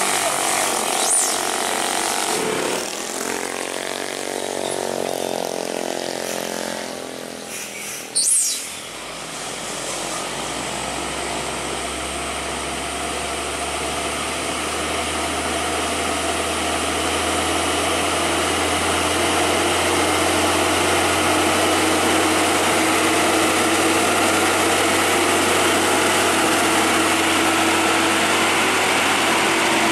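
Hino container truck's diesel engine labouring uphill under load, a steady low drone that grows slowly louder as the truck nears and passes. In the first seconds motorcycle engines pass, and about eight seconds in there is one sharp knock.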